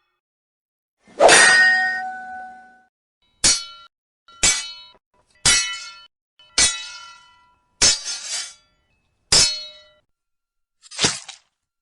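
Sword blades clashing with a metallic ring: one long ringing clash about a second in, then seven shorter ringing strikes spaced about a second apart.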